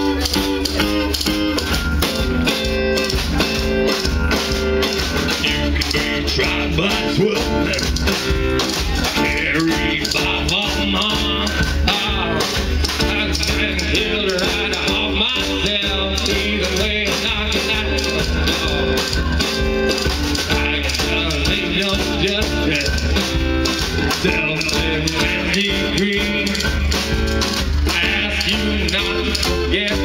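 Live band playing a song: guitar and drum kit, loud and continuous.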